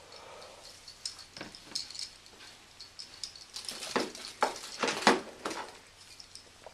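Light clicks, clinks and rustling of ornaments being handled and hung on a Christmas tree, busiest about four to five seconds in.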